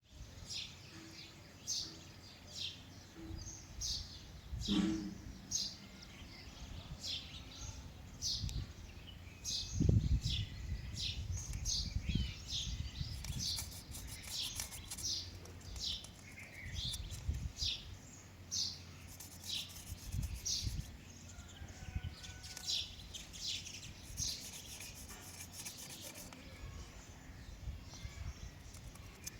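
A parrot making its own natural calls: a long run of short, high chirps, about one or two a second, each sweeping downward. A few low thumps come about a third of the way in.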